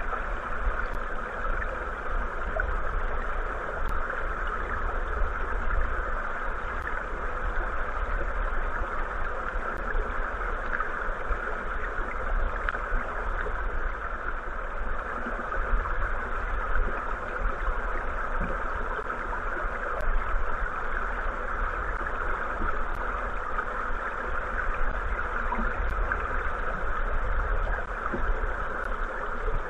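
Steady, muffled rush of river current heard through a camera sitting underwater on the gravel bed, with a deep rumble beneath.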